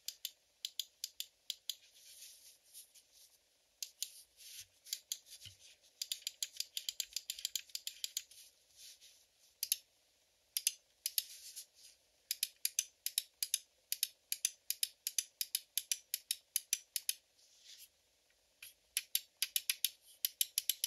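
Pulsar X2 wireless gaming mouse clicking, its optical-switch buttons pressed over and over in quick runs of crisp, light clicks with short pauses between runs.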